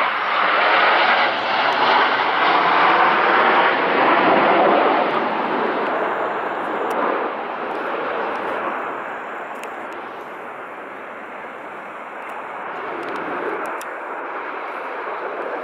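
Jet noise from a formation of nine BAE Hawk jets flying overhead: a loud, even rushing roar that fades over the next several seconds as the formation moves away, then swells slightly again near the end.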